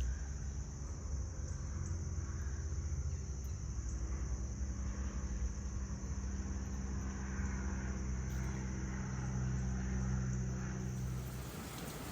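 Car engine and road rumble heard from inside a moving car's cabin, steady with a low hum. About eleven seconds in it gives way to a steady hiss of rain.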